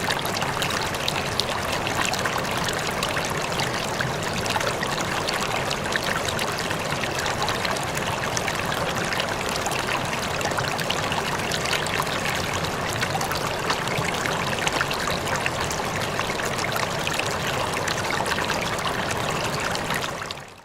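River or stream water flowing steadily over rocks, with a dense splashing and trickling texture; it fades out near the end.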